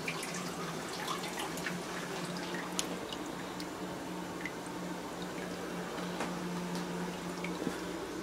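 Water dripping and scattered small clicks and taps as a live lobster is handled over a stainless-steel kitchen sink, over a steady low hum.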